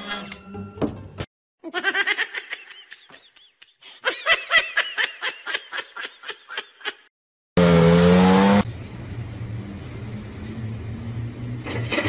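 A person laughing in quick repeated bursts for several seconds. Then a car engine revs once loudly and runs on at a steady hum.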